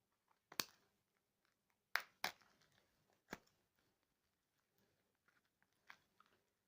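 Small parcel being opened by hand: a few sharp crackles and snaps of packaging, with faint rustling between.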